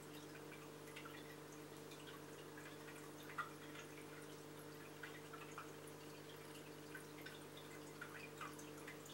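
Faint aquarium water trickling and dripping at the tank's surface, irregular little splashes with one sharper drip about three and a half seconds in, over the steady low hum of the tank's running filter and pump.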